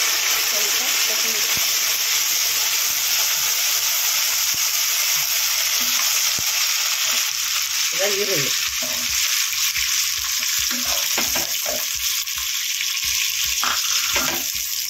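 Whole spices and fresh mint leaves sizzling steadily in hot oil in an aluminium pressure cooker, stirred with a wooden spatula, with a few short knocks in the second half.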